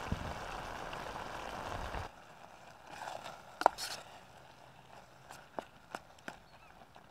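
A steady hiss of the stew bubbling in the cook pot over the alcohol burner. It cuts off suddenly about two seconds in, followed by a few light metallic clinks and ticks, one of them ringing, as the pot is lifted off the stove by its wire handles.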